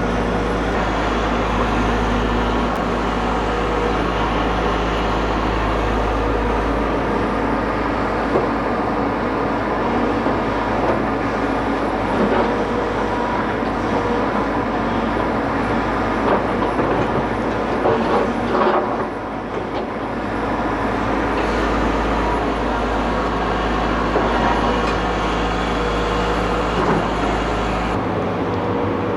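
Hidromek 220 LC hydraulic excavator's diesel engine running steadily under load, with scattered knocks and rattles as it works soil. The engine sound drops briefly about two-thirds of the way through.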